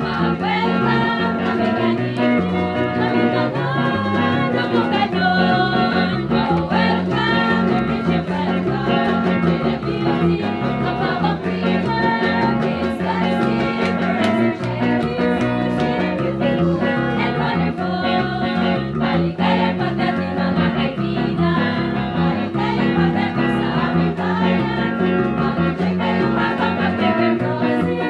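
Live band music: an upbeat song with women singing over an electric bass guitar and other guitars, with a steady beat throughout.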